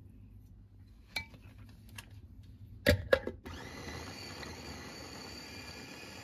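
A couple of light clicks, then two sharp knocks as the chopper's lid and motor head are set on the glass bowl. About three and a half seconds in, a New Land electric food chopper's motor spins up and runs steadily, blending tomatoes and peppers into pizza sauce.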